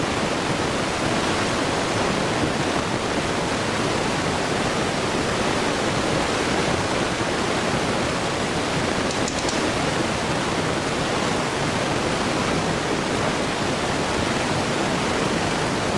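Electric fan running, a steady, even rushing noise.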